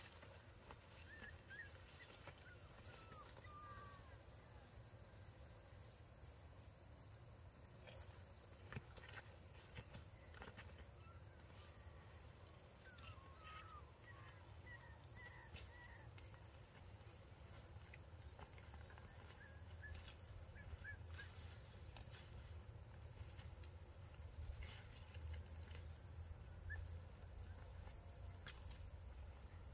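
Faint outdoor ambience of insects droning steadily in a high, even tone, with short bird chirps now and then.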